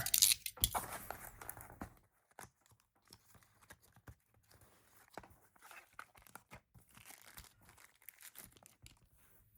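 Product packaging being torn open and handled: a run of crinkling and tearing in the first two seconds, then scattered faint rustles and clicks.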